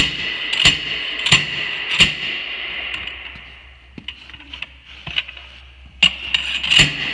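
Slide-hammer bead breaker driven down between a semi-truck tire's bead and its steel rim to break the bead loose: sharp metallic strikes about every two-thirds of a second, a pause of a few seconds with only light knocks, then the strikes start again near the end.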